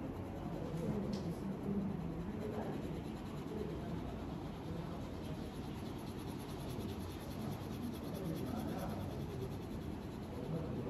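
A crayon rubbing back and forth on paper in steady colouring strokes, a continuous scratchy rubbing.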